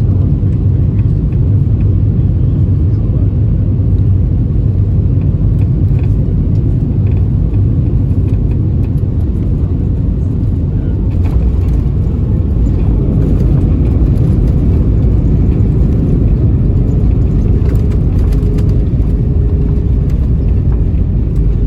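Airbus A320 cabin noise: a loud, steady low rumble of the engines and airflow. A faint steady tone joins it near the end.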